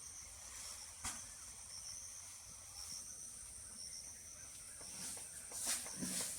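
Steady high-pitched insect chirring in a garden, with one sharp click about a second in and a few soft knocks and rustles near the end.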